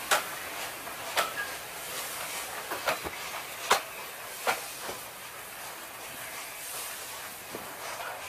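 LNER A4 Pacific steam locomotive Union of South Africa with a steady hiss of steam. Several sharp clicks sound at uneven intervals over the first five seconds.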